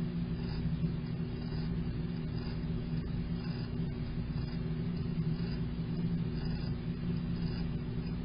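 Stock background soundtrack: a steady low rumbling drone with a constant hum, and faint soft pulses about once a second.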